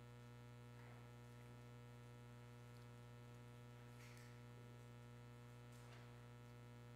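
Near silence: a steady electrical mains hum, with three faint brief sounds about one, four and six seconds in.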